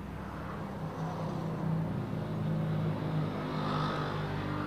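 A motor vehicle passing by: a steady low engine hum that swells over the first few seconds and eases off near the end.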